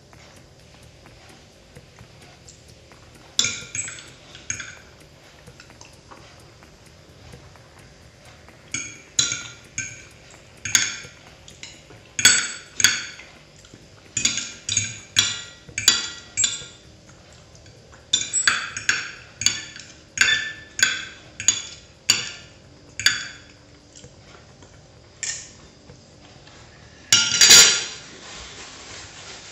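Metal knife and fork clinking and scraping against a ceramic plate in an irregular run of sharp, ringing clinks, as the last scraps of food are gathered up. Near the end comes one short, louder burst of noise.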